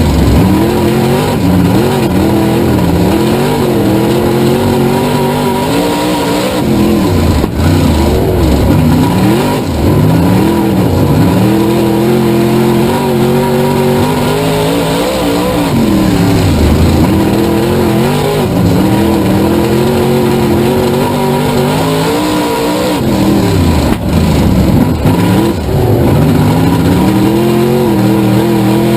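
Race car engine running hard, its pitch dropping as the throttle is lifted and climbing again under full throttle, over and over every several seconds as the car laps the track.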